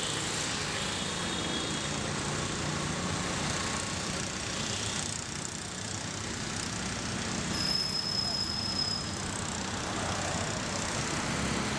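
Steady city street traffic noise from passing motorbikes and auto-rickshaws, with a thin high tone lasting about a second and a half around the middle.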